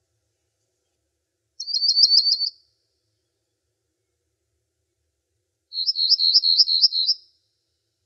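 A songbird singing two short trilled phrases of quick, high repeated notes, the second a little longer, about three seconds apart.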